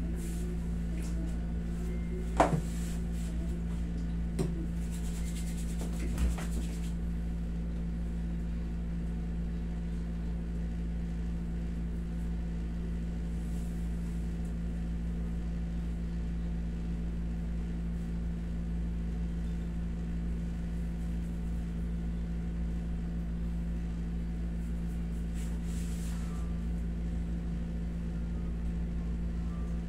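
Window-type air conditioner running with a steady low hum. In the first several seconds there are three short sharp sounds, the first the loudest.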